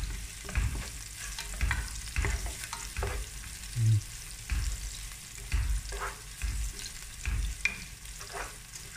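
Sliced onion and garlic sizzling in hot oil in a nonstick pot as they are sautéed, with a wooden spatula stirring and scraping across the pan bottom in repeated strokes.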